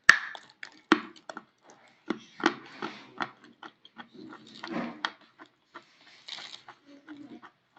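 A piece of peschanka (a soft, sandy edible chalk) being bitten and chewed close to the microphone: a sharp bite right at the start, then an irregular run of crackling crunches.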